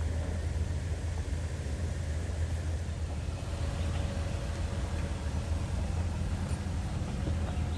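Toyota 4Runner TRD Pro's 4.0-litre V6 running steadily off-road, a continuous low drone with no change in pace.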